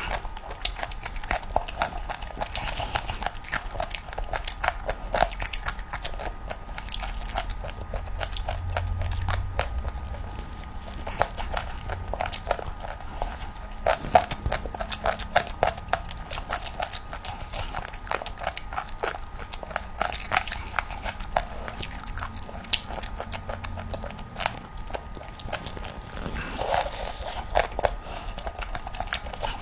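Close-miked chewing and gnawing on chicken feet: a dense, irregular run of wet mouth clicks and small crunches of skin and cartilage.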